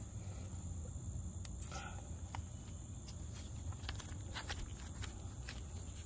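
Faint steady high-pitched trilling of crickets over a low background hum, with a few soft clicks from parts being handled.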